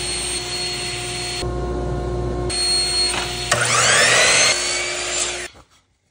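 Power saws cutting wood: a table saw runs with a steady whine as a board is crosscut on a sled, then a Bosch sliding miter saw spins up with a rising pitch about three and a half seconds in. The sound cuts off abruptly a little over five seconds in.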